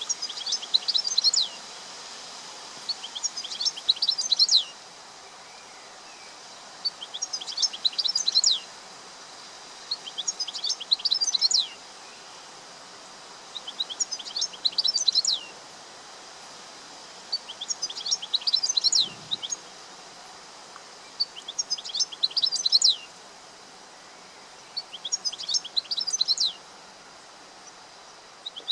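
European goldfinch singing: short twittering song phrases repeated about every three to four seconds, over a steady background hiss.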